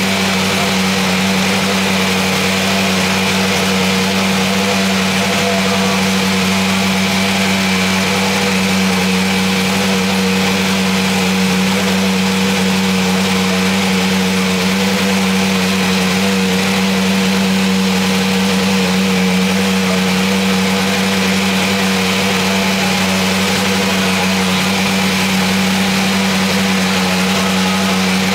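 Dallara SF14 Super Formula car's Toyota 2.0-litre turbocharged four-cylinder engine running steadily during its warm-up. The sound is loud and even throughout, with no revving.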